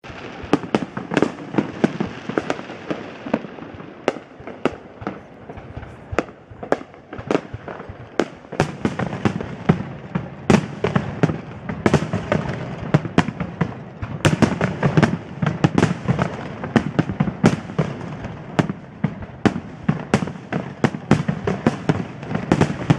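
Aerial fireworks display: shells bursting in a rapid, irregular run of bangs over a steady rumble. The bangs come thicker and the whole gets louder from about eight seconds in.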